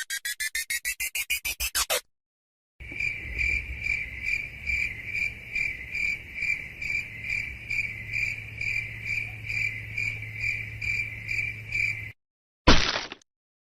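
Crickets chirping in a steady rhythm, about two to three chirps a second, over a low hum. Before it, a rapid pulsing tone rising in pitch cuts off about two seconds in. Near the end comes a short, loud burst of noise.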